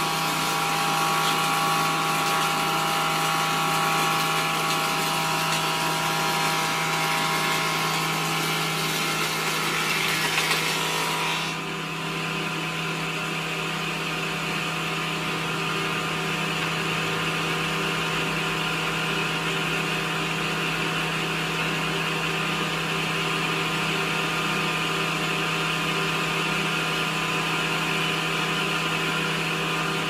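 Woodworking table saw running steadily with a constant motor hum and whine. About eleven seconds in, the higher whine drops away suddenly and the running sound carries on more evenly.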